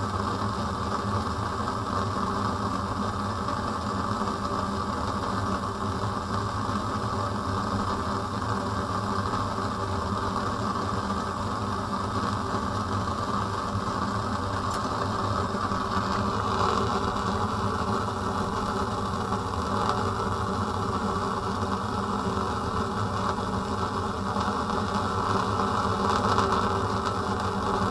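Steady running noise of a fume cupboard's extraction fan, together with a Bunsen burner's flame burning. About two-thirds of the way through, the noise turns a little brighter and hissier.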